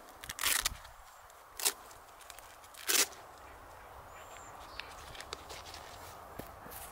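Three brief rustling scrapes as a boot is fitted and fastened onto a dog's paw, with a faint high chirp between them and the end.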